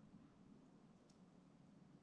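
Near silence, with a faint, steady low hum.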